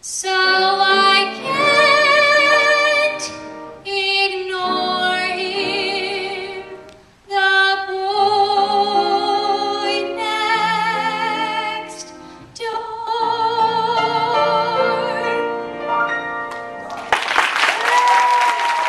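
Young woman singing solo into a microphone, with vibrato on long held notes, over quieter sustained instrumental accompaniment. About seventeen seconds in the song ends and the audience breaks into loud applause.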